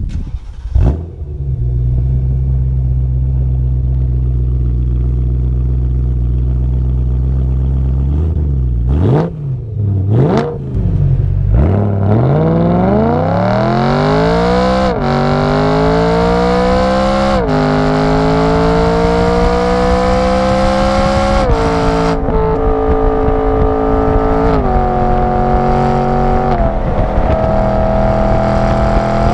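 A 2011 BMW M3 coupe's V8 is heard through a GT Haus Meisterschaft GT2 aftermarket exhaust with quad tips. It runs steadily at low revs, gives two quick revs, then pulls hard with rising pitch, dropping briefly at each of several gear changes.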